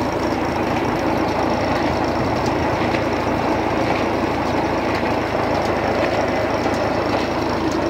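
Ford 3600 tractor engine running steadily, driving a tube-well pump through a PTO drive shaft and pulley.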